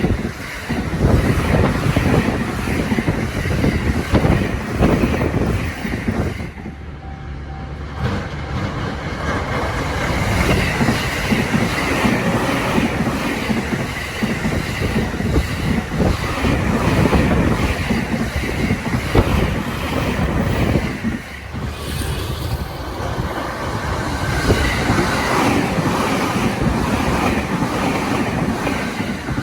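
Electric commuter train passing over a level crossing, its wheels clattering over the rail joints. There is a short lull about seven seconds in and another around twenty-one seconds in.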